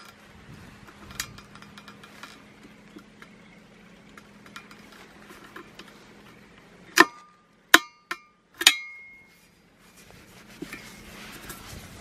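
Just past halfway, four sharp metallic clinks within about two seconds, the last ringing on briefly: steel needle-nose pliers knocking against a steel wheel rim while they work a rubber tyre valve stem. Around them, faint handling noise.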